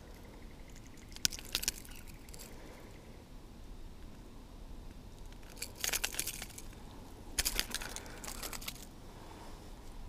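Several short runs of light metallic clicking and jingling, about a second in, around six seconds and again near eight seconds: fishing pliers working the treble hooks of a hard-body diving lure out of a flathead's mouth.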